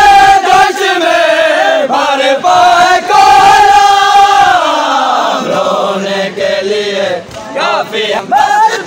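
A crowd of men chanting a noha, a Shia mourning lament, together in unison. Long sung lines waver and fall in pitch, with a softer, lower stretch past the middle before the chant swells again near the end.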